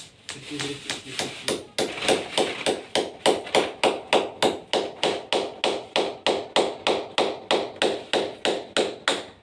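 Hand hammer striking in a steady run of sharp blows, about three a second, lighter at first, while the air conditioner's pipe is being fixed to a masonry wall.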